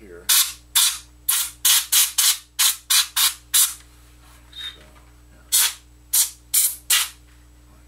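Canned compressed air blown in short hissing blasts into a boombox's cassette mechanism, clearing dirt loosened from the tape heads. About ten quick blasts come in the first four seconds, then four more near the end.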